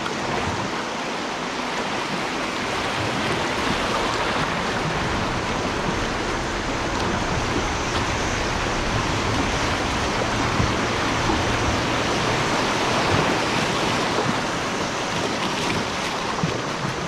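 River water rushing and splashing through shallow riffles around a kayak, a steady rushing noise.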